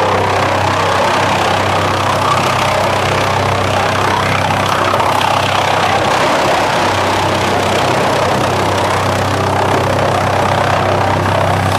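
ASILVA DFR4-550s drum wood chipper running steadily with a low hum, chipping slabs and branch wood drawn in by its chain infeed conveyor and spiked feed roller.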